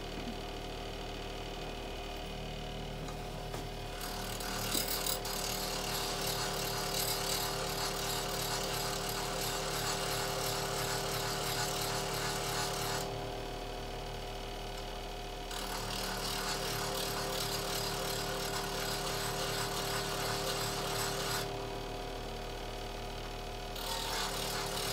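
Bench grinder running steadily, with a chisel's edge pressed to the spinning wheel to grind in passes: a hissing grind starts about four seconds in, stops briefly twice as the blade is lifted off, and resumes. The old secondary bevel is being ground back into the hollow grind until only a whisker remains at the edge.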